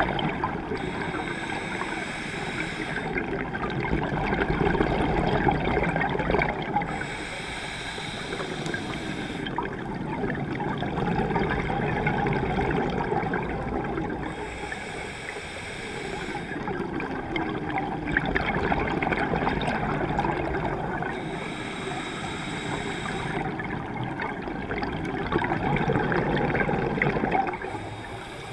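Scuba diver breathing through a regulator underwater. About every six or seven seconds a short hissing inhale is followed by a longer, louder bubbling exhale, five breaths in all.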